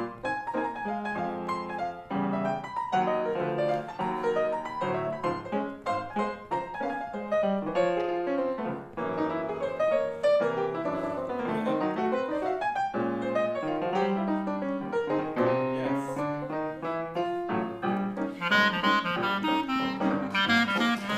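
Grand piano playing a solo passage of runs and chords. About three seconds before the end, a clarinet comes in over it.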